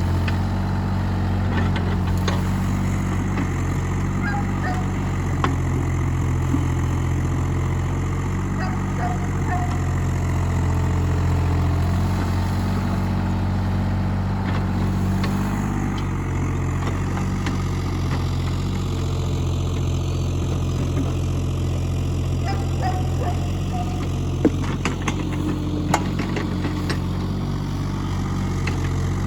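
Mini excavator engine running steadily while it works, with a few sharp knocks near the end.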